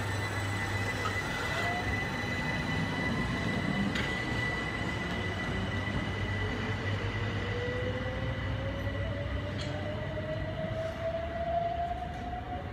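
Class 377 Electrostar electric multiple unit pulling away from the platform, running on the rails. From about halfway through, its traction motors give a whine that rises slowly in pitch as it gathers speed.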